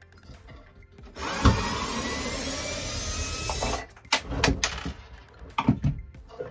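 Cordless drill/driver backing out a screw from a wooden shelf bracket. It spins up about a second in, runs steadily for nearly three seconds and stops, and a few knocks of wood follow as the shelf is worked loose from the wall.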